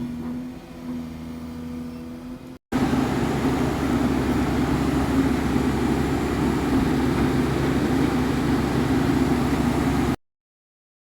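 Excavator's diesel engine running steadily. The sound cuts out briefly about two and a half seconds in and comes back louder and rougher, then stops abruptly near the end.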